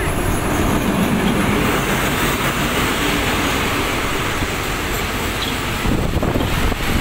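A train's cars rolling past close by, a steady loud rumble of wheels on the rails.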